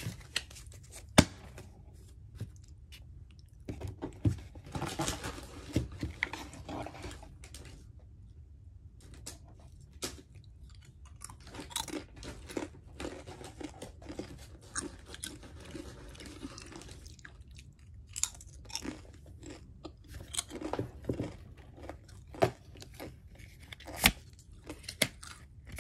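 Crinkling and crunching of Pokémon booster pack foil wrappers and cards being handled close to the microphone, with irregular sharp clicks.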